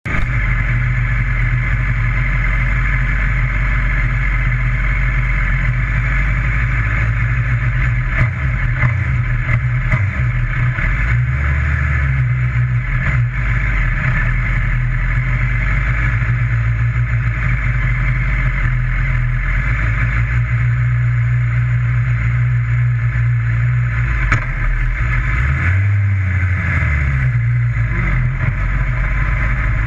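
Modlite dirt-track race car's engine idling steadily, heard from inside the cockpit. Its pitch rises briefly twice, about a third of the way in and again near the end.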